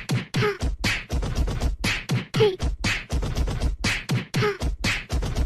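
A fast, regular beat of sharp percussive hits, with a short falling voice-like yelp about once a second, in the manner of beatboxing.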